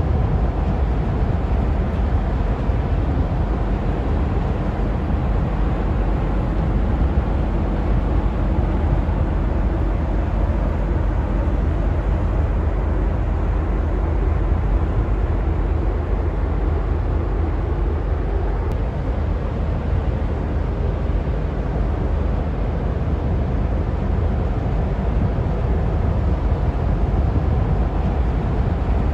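Steady low rumble of a pusher tug's diesel engines as the tug and its barge pass close by, even in level throughout.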